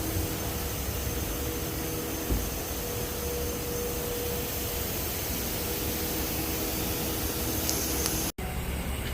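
Steady hiss of compressed air with a faint motor hum, typical of a paint spray gun run off an air compressor. The sound cuts off abruptly near the end.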